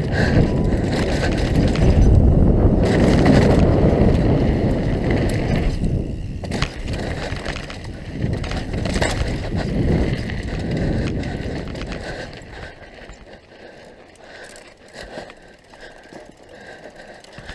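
Mountain bike descending a dirt and gravel downhill trail, heard from a helmet-mounted camera: loud wind rush on the microphone with tyres crunching and the bike clattering over bumps. The rush grows clearly quieter after about twelve seconds.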